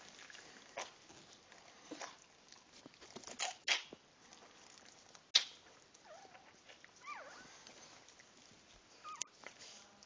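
Dachshund mother licking her newborn puppy: irregular wet licking clicks and smacks, the loudest a sharp click about five seconds in. A few short, thin squeaks from the newborn come around six to seven seconds in and again near the end.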